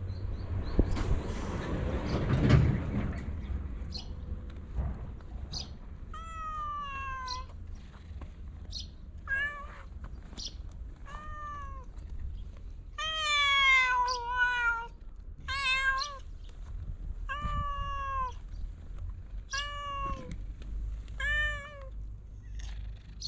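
A domestic cat meowing repeatedly, about ten meows each rising and falling in pitch, one of them long, starting several seconds in. Before the meows there is a brief loud noise about two seconds in.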